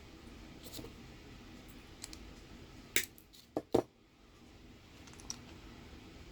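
Sharp clicks and snaps of a small metal hand tool working the front wheels off a diecast toy car: a few light clicks, then three sharp snaps in quick succession about three seconds in.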